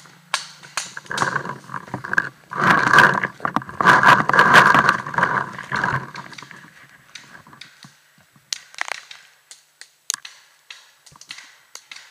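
Close rustling and scraping of a paintball player's gear and movement over leaf litter, loudest in the first half, then a few scattered sharp clicks and cracks.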